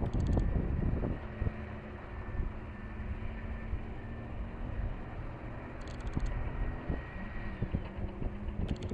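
Heavy earthmoving machine's engine running steadily, with a low rumble and wind buffeting the microphone.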